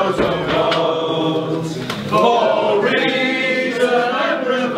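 A roomful of people singing together, many voices holding long notes in unison.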